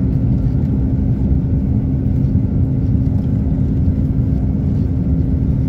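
Airbus A330 airliner's jet engines: a steady deep rumble with a constant low hum running through it.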